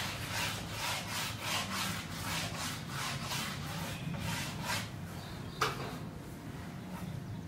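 Chalk rubbed rapidly back and forth on a blackboard, shading in an area in a quick run of scratchy strokes, then stopping; one sharp tap follows a little past halfway.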